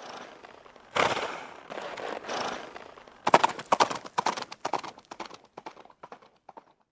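A horse making several breathy blowing bursts, followed from about three seconds in by a quick run of sharp hoofbeats that thin out and fade away.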